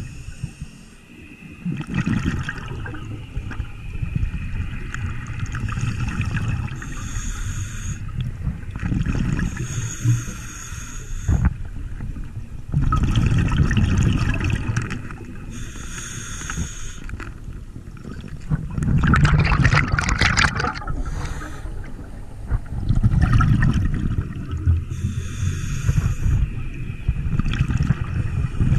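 A scuba diver's breathing through a regulator, heard underwater. Each breath in gives a hiss and each breath out a rumble of exhaust bubbles, every few seconds. The loudest bubble burst comes a little past two-thirds through.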